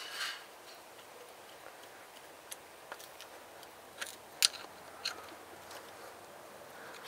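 Scattered small clicks and scrapes as a stubborn VANOS solenoid is pulled and pried out of its bore in a BMW N52 cylinder head, the sharpest click about four and a half seconds in.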